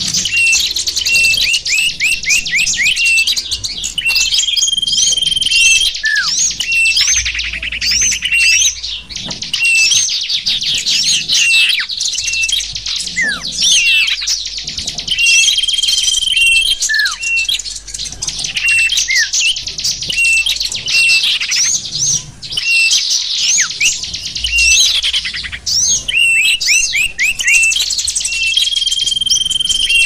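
Bird-lure (pikat) recording of many small songbirds chirping together in a dense, unbroken high twittering. Short steady whistled notes and quick falling whistles recur every few seconds.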